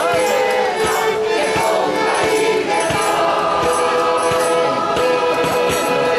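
A street orchestra and choir performing together: violins and other instruments carrying a melody over many voices singing, with a bass drum beating steadily about twice a second.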